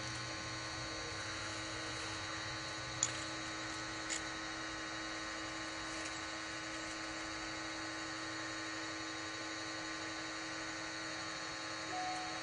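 Electric well pipe-pulling machine running with a steady hum as it draws the drop pipe up out of the well, with two faint clicks about three and four seconds in.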